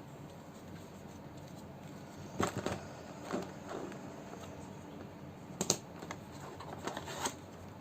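Handling noise from a plastic neck air conditioner and its packaging: scattered soft clicks and rustles, bunched about two and a half seconds in and again near six and seven seconds.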